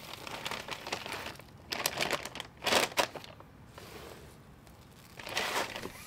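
Plastic bag of birdseed crinkling and rustling as a hand works in it and handles the seed, in several short bursts with quiet gaps between them.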